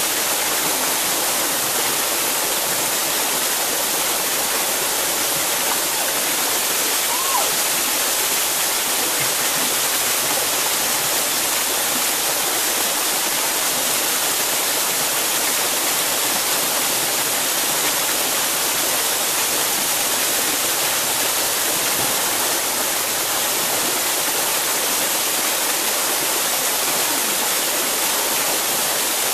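A small waterfall pouring over a rock ledge into a pool: a steady, even rush of falling water.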